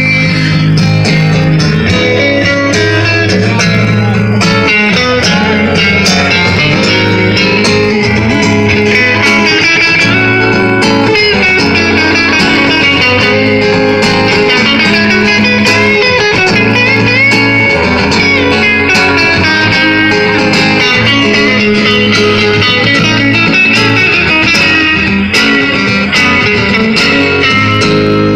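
Live amplified guitar music: an acoustic and an electric guitar playing together through PA speakers, with no singing.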